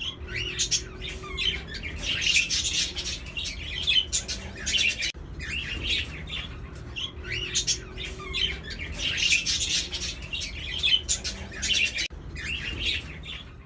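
Budgerigars chattering and chirping together in a continuous run of rapid, high chirps and warbles.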